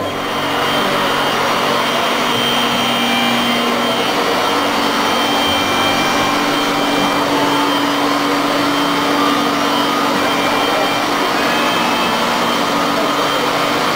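Machinery of a biomass district-heating plant running: a loud, steady rushing hum with a few steady tones in it.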